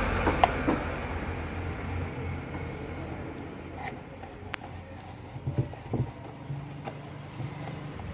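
A sewing machine running with a steady low mechanical hum that fades away over the first few seconds, followed by scattered light clicks and taps of the machine's parts being handled.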